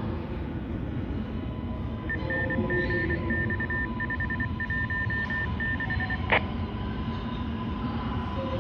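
A quick string of high electronic beeps, some short and some longer, over a steady low rumble with a faint hum, ending in a single sharp click.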